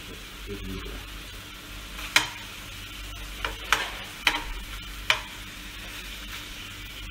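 Chicken adobo sizzling in a frying pan while a spatula stirs it, knocking sharply against the pan about five times in the middle.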